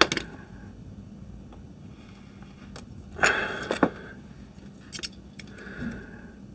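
Masking tape being cut into small pieces: a sharp snip right at the start, a louder scraping, tearing stretch about three seconds in, and a few lighter snips and rustles near the end.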